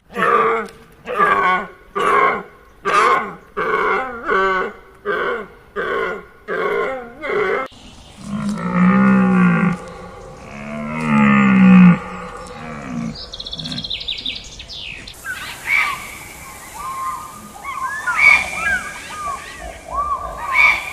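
A run of different animal calls: about ten short pitched calls in quick succession, then two long low calls, then chirping calls over a steady hiss near the end.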